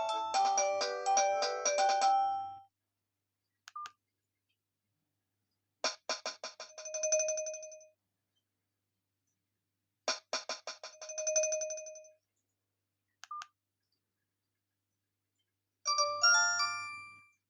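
Alcatel 232 mobile phone ringtones. A quick melodic tune ends about two seconds in. Then comes a ringtone of a rapid trill followed by a held tone, played twice with pauses and short single beeps between. Near the end there is a rising run of notes.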